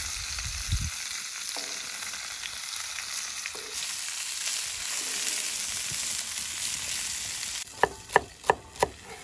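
Venison shanks, onions and garlic frying in a hot cast-iron pan over a wood fire: a steady sizzle. Near the end it gives way to a chef's knife chopping celery on a wooden board, about five sharp knocks at roughly three a second.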